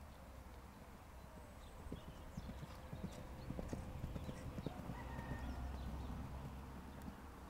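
Hoofbeats of a pony cantering on grass: a quick, uneven run of dull thuds that grows loudest as it passes close, about two to five seconds in.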